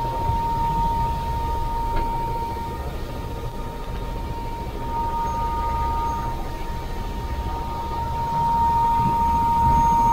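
Small helicopter's engine and rotors running: a low rumble under a steady high-pitched whine, growing louder near the end.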